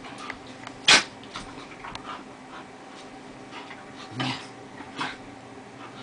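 Two dogs, a Lhasa Apso and a golden retriever puppy, playing rough together, with one sharp, loud noise about a second in and a few softer ones later.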